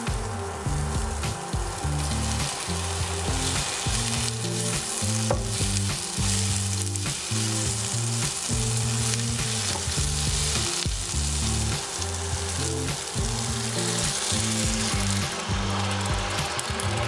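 Sliced leeks and green bell pepper sizzling as they fry in oil in a nonstick frying pan, stirred and scraped with a wooden spatula. Near the end, vegetable broth is poured into the hot pan.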